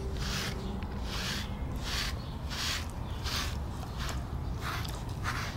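Footsteps in a steady walking rhythm, about two crunchy steps a second, over a constant low rumble.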